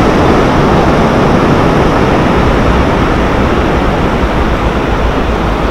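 Steady, loud rush of ocean surf breaking on the shore, with a constant low rumble and no distinct events.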